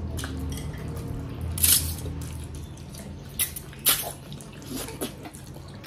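Close-up eating sounds: wet chewing and mouth smacks with a few short, sharp clicks spread through, the sharpest about two and four seconds in.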